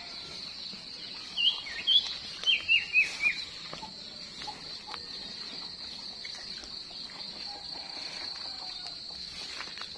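A bird calling a quick run of about seven short, sharp chirps, each falling in pitch, starting about a second and a half in, over a steady high-pitched drone of insects.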